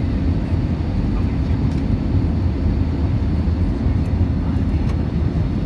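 Steady low rumble of cabin noise inside a Boeing 737, from its engines and the airflow around the airliner, with a faint steady hum in it.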